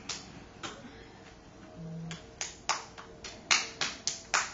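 A small child clapping her hands: an irregular run of sharp single claps, coming closer together near the end.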